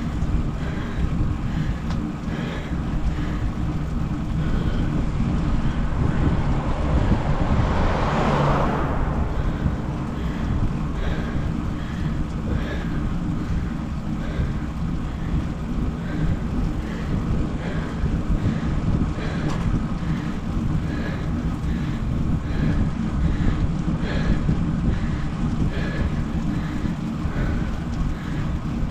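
Wind rumbling on the microphone, with faint regular sounds about once a second. A louder gust swells about eight seconds in.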